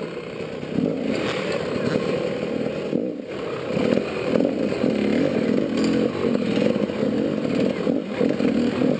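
Enduro motorcycle engine revving up and down with repeated blips of throttle as the bike picks its way over rocks, easing off briefly about three seconds in.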